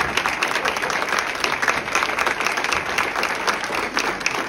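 Audience standing and applauding: dense, steady clapping of many hands from a large crowd, a standing ovation.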